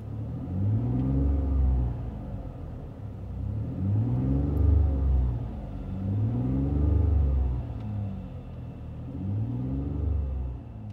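V6 engine of a 2020 Chevy Colorado breathing through a Magnaflow 3-inch cat-back exhaust, heard from inside the cab. It is revved again and again in short blips, the pitch rising and falling every two to three seconds. The interior tone is mild.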